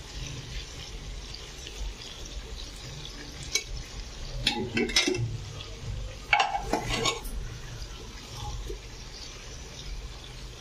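A metal ladle scooping fried chicken out of an aluminium pressure cooker, scraping and clinking against the pot and a steel plate, with several sharp clinks between about three and a half and seven seconds in. Underneath is a steady low hiss of oil frying in the pot.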